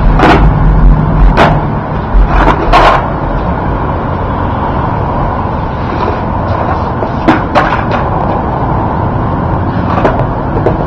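Skateboard clacking on concrete during flatland tricks: a few sharp clacks in the first three seconds, two more about seven seconds in, and one near the end, over a steady background rumble.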